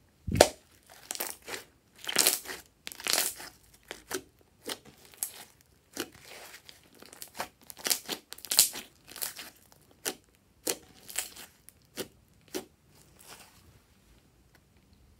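Glossy slime being stretched, folded and squeezed by hand, giving irregular crackling, squishing bursts about one or two a second as trapped air pops. It opens with one loud thump.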